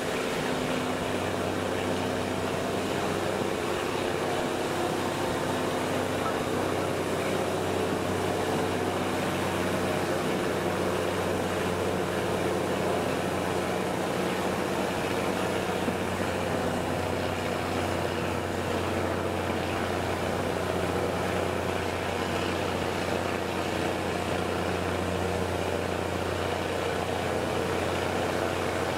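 Diesel shunting locomotive's engine running steadily as the train moves along the line, heard from an open cab-side window.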